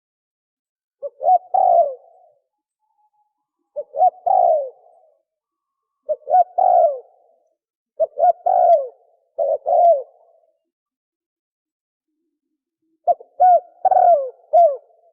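Spotted dove cooing in the fast 'thổ còi' style: short phrases of two or three quick coos about every two seconds, then a pause before a longer phrase near the end.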